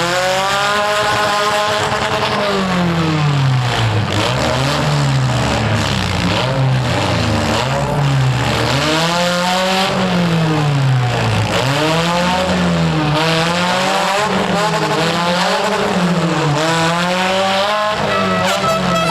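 Demolition derby compact car engine revving up and down over and over, about every two seconds, with the noise of spinning, skidding tyres.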